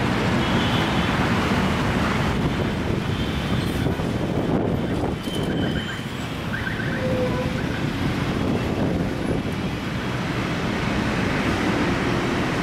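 Steady roadside traffic noise from passing vehicles.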